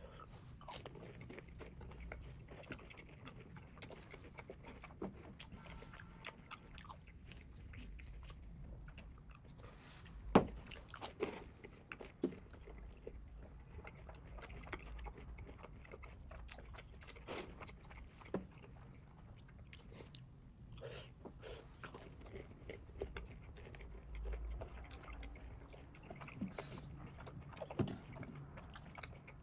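A person eating with big bites, chewing with wet smacking and crunchy clicks, sped up to double speed; one sharper crunch stands out about ten seconds in.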